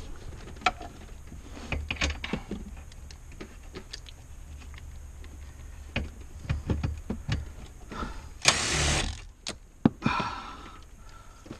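Hand tools and interior trim parts being handled during car interior disassembly: scattered clicks, taps and knocks, with a short rasping noise lasting under a second about two-thirds of the way through, the loudest sound.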